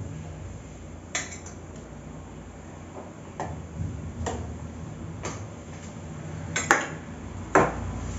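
Steel ladle and spoon clinking and knocking against steel cooking pots and a plate, a string of separate clinks with the sharpest two near the end, over a low steady hum.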